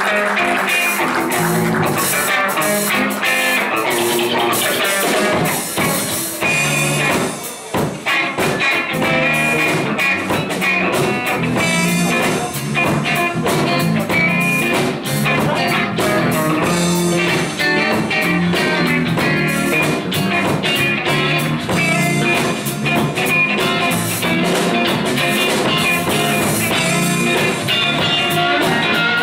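Live blues band playing an instrumental passage: two electric guitars, electric bass and drum kit, dropping back briefly about seven seconds in.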